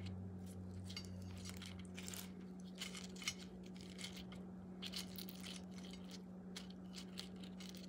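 Faint scattered rustles and soft clicks of crisp fried fish being handled and laid onto fried plantains on a ceramic platter, the sharpest click about three seconds in, over a steady low hum.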